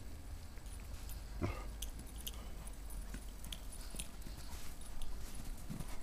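A dog gives one short bark about a second and a half in, while a dog plays and runs in snow. Faint scattered crunches of feet in the snow follow.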